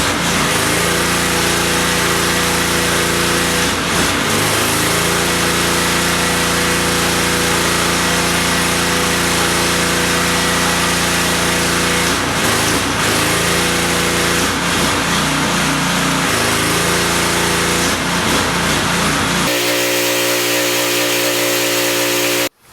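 Gas-engine DEWALT 3600 psi pressure washer running under load with the loud hiss of the high-pressure spray; the engine note dips briefly several times. A few seconds before the end the spray hiss stops and the engine runs on alone, then the sound cuts off abruptly.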